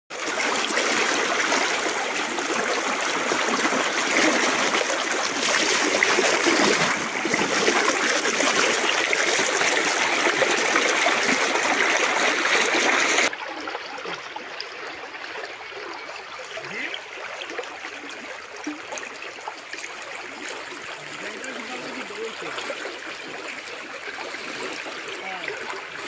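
Shallow stream rushing over a stony bed in a steady, even wash. About halfway through it drops suddenly to a quieter, gentler flow.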